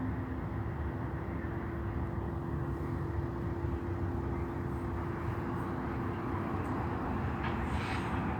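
Cars of a potash freight train rolling past, a steady rumble of wheels on rail with a faint steady hum beneath it.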